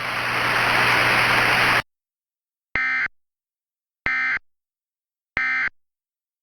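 A steady hiss swells for nearly two seconds and cuts off. Then come three identical short, buzzy bursts of EAS digital data tones about a second apart: the End of Message (NNNN) code, sent three times to close the emergency alert.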